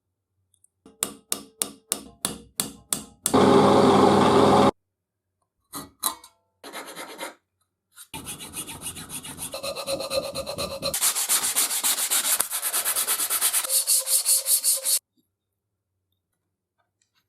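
Hand abrading of an antique ox-tongue iron's metal: eight separate scraping strokes, about three a second, then a loud steady rasping noise for about a second and a half. After a pause comes a long run of quick back-and-forth rubbing strokes, about four a second, that stops suddenly.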